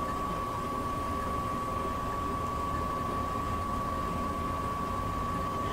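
Weller soldering gun humming steadily with its trigger held, heating a wire splice while the solder flows.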